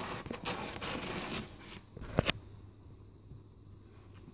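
Leatherman multi-tool blade slicing through clear packing tape on a cardboard box: a rasping scrape of blade through tape and cardboard, then a couple of sharp clicks about two seconds in.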